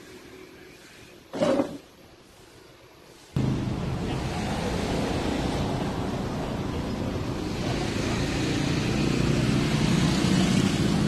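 A vehicle engine runs steadily with a rushing noise. It starts abruptly about three and a half seconds in and grows a little louder near the end. Before that, one brief scrape sounds about a second and a half in.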